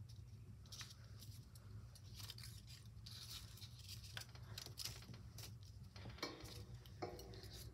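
Faint paper handling: a glue stick rubbed on a curled construction-paper strip, then light rustles and taps as the strip is pressed onto the paper sculpture.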